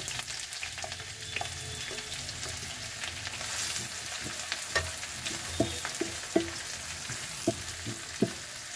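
Freshly added chopped onions sizzling in hot oil in a non-stick pan, stirred with a wooden spatula. The spatula knocks against the pan several times in the second half.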